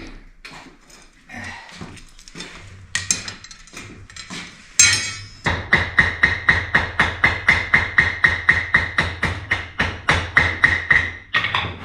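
Hand hammer striking hot iron on an anvil while forging a thrust washer: a few scattered knocks, then from about halfway a fast, even run of blows, about five a second, each with a ringing note from the anvil. A steady low hum runs underneath.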